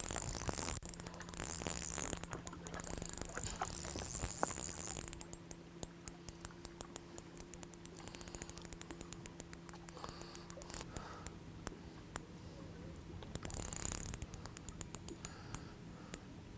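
Fishing reel being wound in while a hooked fish is played: rapid, even clicking from the turning reel, with a higher hiss at the start and again briefly about two thirds through.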